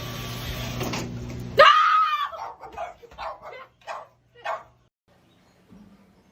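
A steady low hum, cut off about a second and a half in by a sudden loud scream, then four or five short cries.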